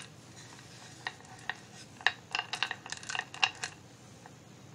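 Strands of a beaded necklace clicking and clacking together as they are handled, a quick irregular run of small sharp clicks starting about a second in and thickening toward the middle before stopping.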